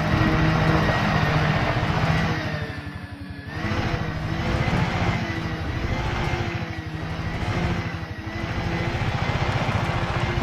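An engine running with fast, even low pulsing, rising and falling in swells, with a thin steady high whine over it.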